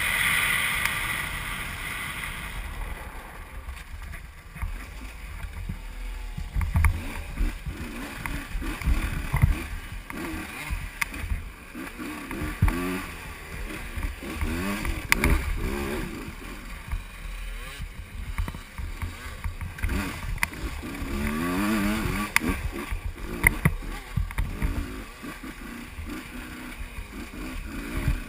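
Husqvarna WRE125 two-stroke enduro motorcycle engine revving up and falling back again and again while riding off-road. Sharp knocks from the bike hitting bumps are scattered throughout.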